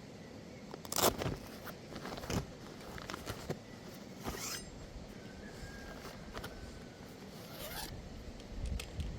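A handful of short scraping, rasping strokes spread irregularly over several seconds, the loudest about a second in.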